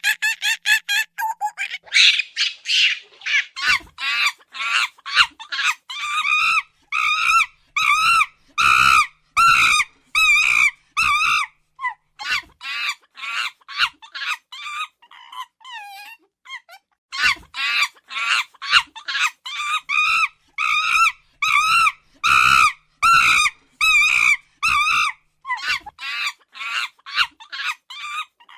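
A monkey giving rapid runs of short, shrill, wavering screeching calls, several a second, broken by brief pauses.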